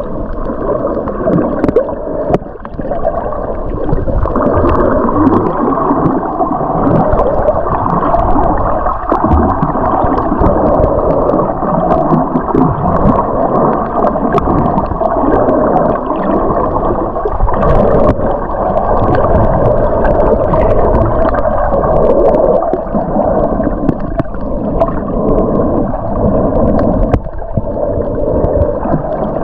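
Muffled underwater noise from a camera held below the surface: steady rushing and gurgling of water, with scattered faint clicks.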